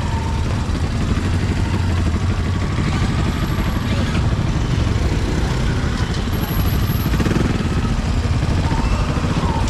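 Street ambience dominated by motorbike engines running and idling, with a steady low hum throughout.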